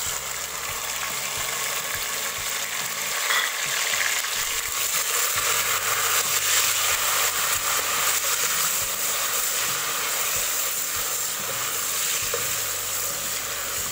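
Chopped tomatoes and onions frying in hot oil, a steady loud sizzle while they are stirred with a wooden spatula.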